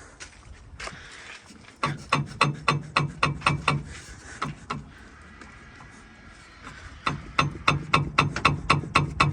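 Rapid, even mechanical clicking, about five clicks a second, in two runs: one starting about two seconds in and lasting about two seconds, the other starting about seven seconds in.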